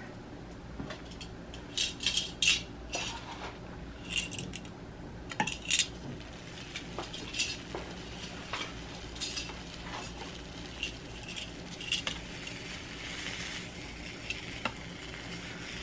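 Metal kitchen tongs clicking and clinking repeatedly against a Dash mini waffle maker while a slice of Spam sizzles faintly on its hot plate.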